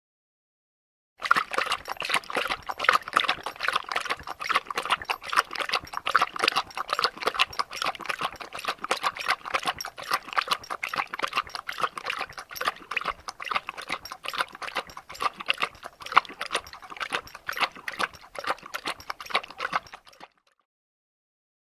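A dog lapping water with its tongue: a long run of rapid, even wet laps, several a second. It starts about a second in and stops just before the end.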